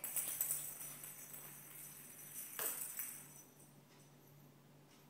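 Jingling, rattling sound for about three seconds, with a louder shake near the end of it, then it stops. It is like a bell or jingle toy being shaken during a puppy's play.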